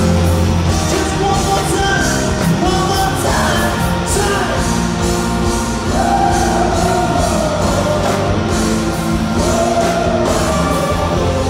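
Live rock band playing with electric guitar, keyboards and drums, with singing over held chords and a steady beat of cymbal strokes.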